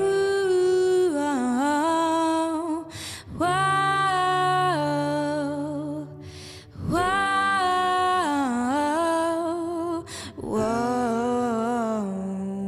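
A woman singing the wordless 'ooh, oh' refrain in three long sliding phrases with vibrato, with short breaths between them, over piano chords.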